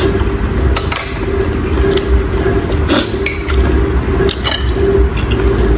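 Close-miked eating of fish soup: wet squishy mouth sounds with scattered light clinks of utensils against a bowl, over a steady low hum.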